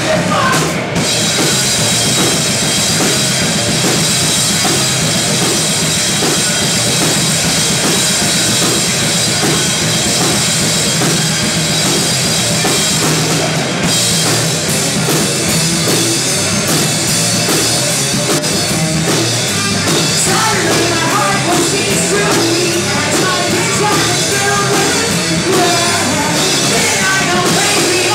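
Heavy metal band playing live: distorted electric guitars, bass guitar and drum kit, loud and continuous.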